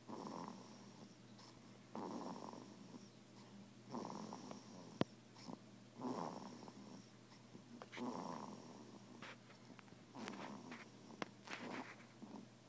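A baby snoring in sleep, a soft breathy snore about every two seconds. A single sharp click about five seconds in.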